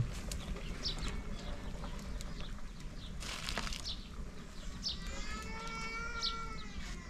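Small birds chirping in short, high notes every second or so. A brief splash about three seconds in as hot water is tipped from a ladle, and a longer even-pitched animal call about five seconds in.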